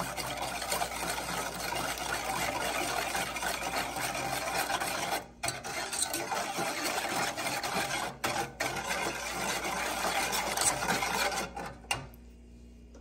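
Wire whisk stirring a thin glaze liquid in a metal saucepan, the wires scraping and swishing against the pan. It breaks off briefly twice and stops about 12 seconds in.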